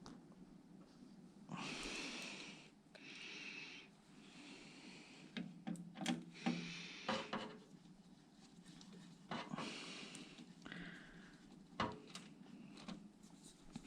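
Hands working computer parts into place: scattered clicks and taps and rubbing of small hard parts. Several short hissing rushes of about a second each, the first near the start and another about nine seconds in.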